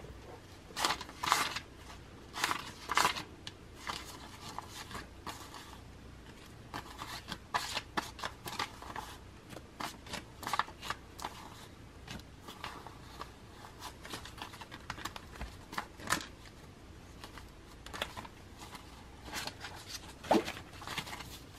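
Paper banknotes handled and sorted by hand: a run of irregular, crisp rustles and flicks as the bills are fanned and shuffled into stacks, loudest in the first few seconds.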